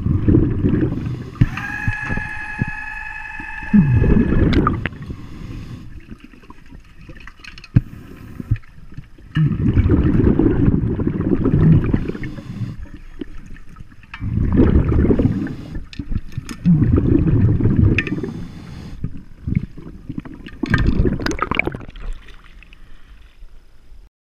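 Scuba diver breathing through an open-circuit regulator underwater: about six bubbling exhalations, each lasting one to two seconds, with quieter gaps between them. A brief whistling tone comes about two seconds in, and the sound cuts off just before the end.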